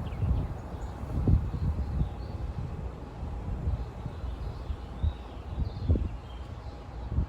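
Outdoor ambience: irregular low gusts of wind buffeting the microphone, with a few faint bird chirps.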